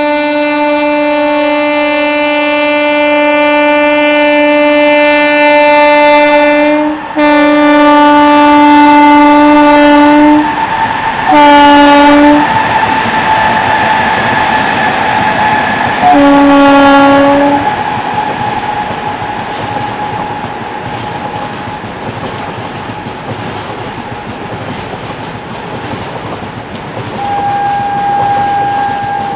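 Twin WCG-2 DC electric locomotives hauling a BCNA freight: the horn sounds in two long blasts and then two shorter ones, very loud. Under and after the horn the locomotives' blowers howl in a steady high tone while the wagons clatter over the rail joints; the howl fades, then swells again near the end.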